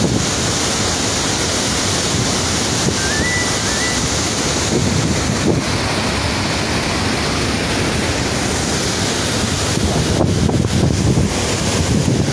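Floodwater rushing steadily out through the Sardar Sarovar Dam's open spillway gates, with wind buffeting the microphone, more strongly near the end.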